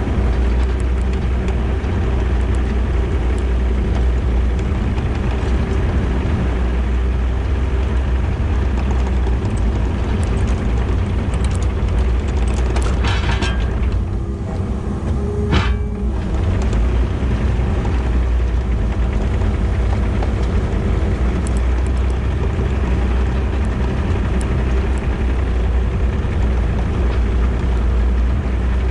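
Kubota KX080 excavator's diesel engine running steadily under load, a constant low rumble. Midway the level dips briefly, with two short harsh bursts.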